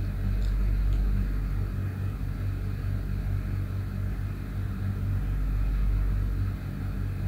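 A steady low hum with a faint, even background hiss.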